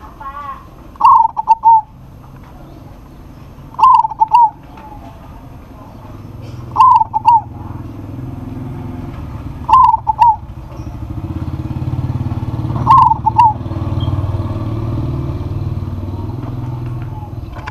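Zebra dove (perkutut) cooing: five short phrases of several quick notes, about one every three seconds. A low motor rumble grows underneath from about six seconds in.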